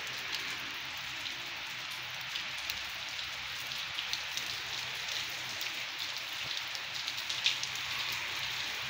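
Steady rain falling on a tiled roof and yard, a constant hiss dotted with the ticks of single drops, one sharper tick about seven and a half seconds in.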